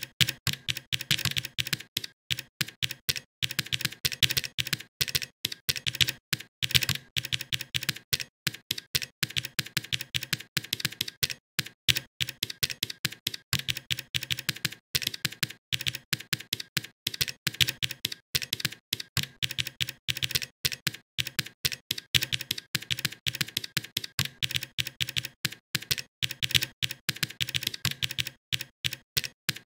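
Typing on a computer keyboard: rapid keystrokes, several a second, broken by short pauses.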